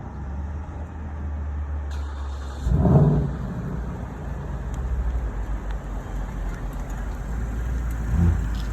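Car engine running with a low, steady rumble as a car pulls in, with a short rev about three seconds in and a smaller one near the end.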